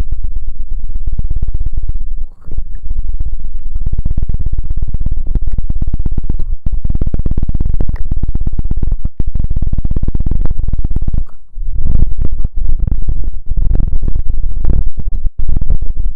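Rapid, dense scratching or rubbing right on the microphone, loud and heavy in the low end, with short breaks about two seconds in and near the middle.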